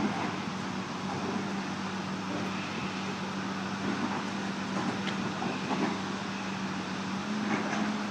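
Diesel engine of heavy construction equipment running steadily with a constant low hum, with a few faint knocks and scrapes scattered through.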